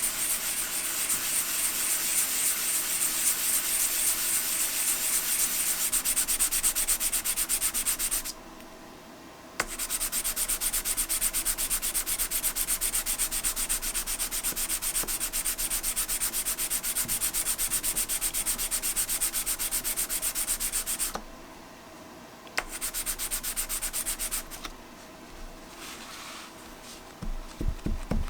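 A small metal speaker badge rubbed back and forth on wet-and-dry 400 grit abrasive paper in quick, even strokes, polishing tarnish and pitting off its face. The rubbing pauses briefly about 8 seconds in, stops about 21 seconds in, then returns in a short spell and fainter strokes near the end.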